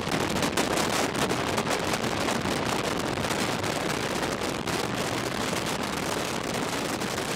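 Steady rushing road and wind noise of a car driving fast through a road tunnel.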